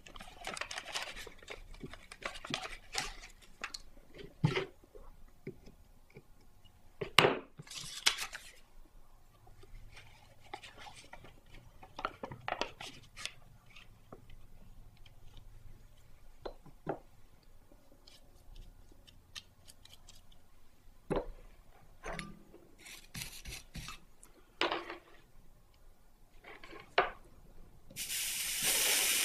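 Paper rustling with scattered small clicks and taps as a scrap of paper is worked in behind a stained-glass box's hinge. Near the end comes a loud hiss as the soldering iron meets the fluxed solder on the hinge.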